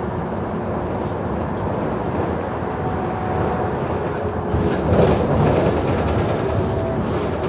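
Diesel engine of a Mercedes-Benz O345G articulated bus idling while the bus stands still: a steady low rumble that swells briefly about five seconds in.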